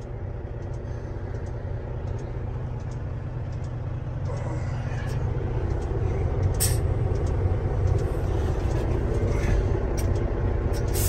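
Caterpillar 6NZ inline-six diesel of a 2005 Kenworth T600 running, heard from inside the cab. It grows louder from about four seconds in as the truck pulls away under load.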